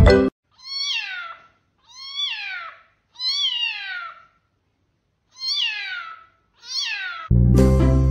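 A kitten meowing five times: thin, high calls that each slide down in pitch, about a second and a half apart. Background music cuts off just after the start and comes back near the end.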